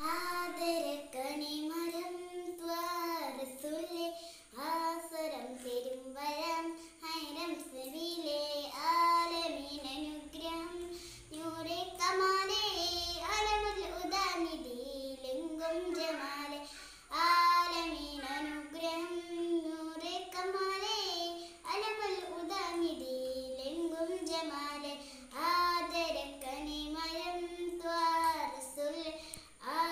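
A young girl singing solo and unaccompanied, in phrases of about five or six seconds with short breaths between them.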